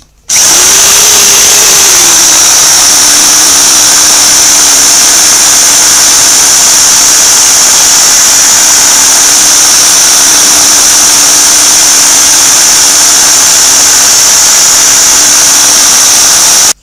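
Small bench drill press running, a bit noisy, with a high whine, as a small bit drills pilot holes into the plastic base of an electric kettle. The motor starts abruptly, settles within the first couple of seconds, then runs steadily until it cuts off.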